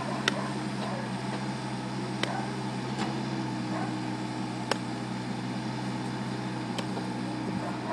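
Kubota mini excavator's diesel engine running steadily, with about five sharp metallic clinks spread through the moment as it handles a concrete storm shelter on its arm.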